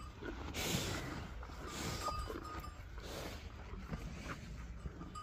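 Cattle pen sounds: tethered cows moving about, with a brief clink from a cow's neck bell and a few soft rustling swishes.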